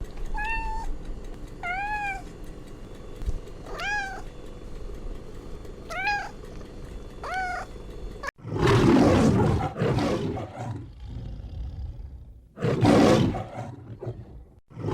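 A domestic cat meowing five times, short rising-and-falling mews about every one and a half to two seconds. About eight seconds in, it cuts to a different, much louder and rougher animal call, heard three times.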